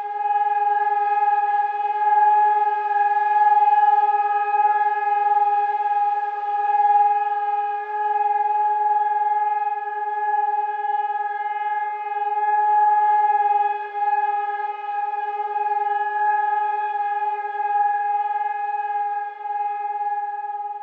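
Civil defence warning siren sounding one long, steady tone that holds the same pitch without rising or falling, its loudness wavering slightly.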